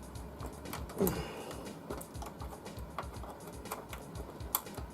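Scattered light clicks and taps of small metal screws and a tool being handled while searching for a screw that fits, with a brief falling tone about a second in.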